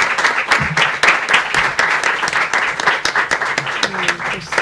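Audience applauding: a dense round of many hands clapping, easing off near the end.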